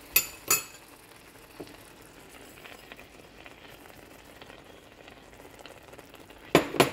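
Grated carrots and milk simmering in a pan, a faint steady bubbling hiss. Two sharp clinks of kitchenware come just after the start and two louder ones near the end.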